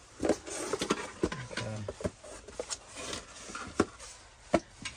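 A ceramic beer stein and its cardboard box being handled: rustling and scraping of cardboard with a string of light, irregular knocks and clicks.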